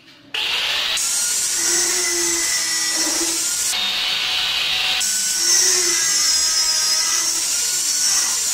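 Electric angle grinder switched on about a third of a second in, its motor whining at full speed, then the disc cutting into a steel bar with a loud steady hiss that changes a few times as the disc bites and eases off.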